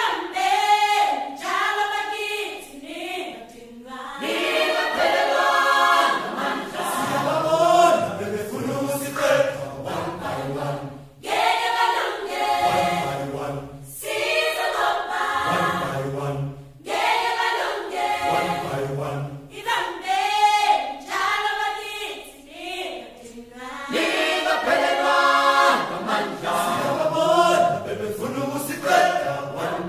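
A choir singing, with low bass notes under the higher voices, in phrases broken by short pauses.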